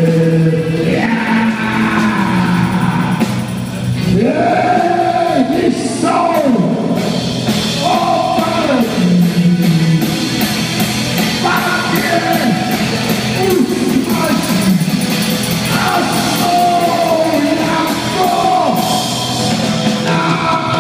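Live rock band jamming: a singer carries a melody over electric guitar and a steady drum-kit beat.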